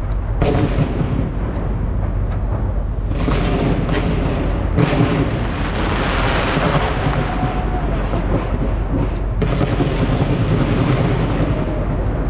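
Fireworks bursting in rapid succession close overhead: a continuous rumble of bangs, with dense crackling that is strongest in the middle.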